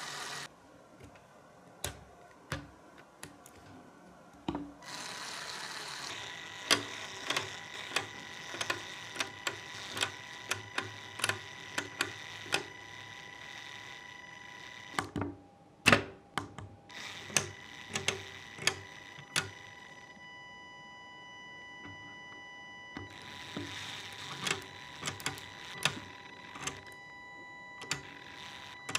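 Battery-powered Lego Technic gear train running, a steady whir with a thin whine from the many plastic gears meshing, mixed with many sharp clicks of plastic Lego parts being snapped into place by hand. The running whir cuts out briefly a couple of times and starts again.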